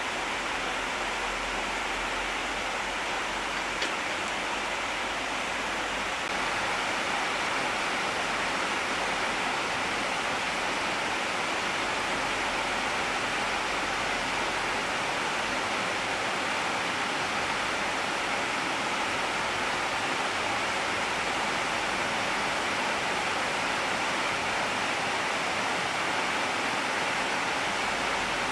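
Steady, even hiss of noise with no calls or voices in it, stepping up slightly in level about six seconds in; a faint click about four seconds in.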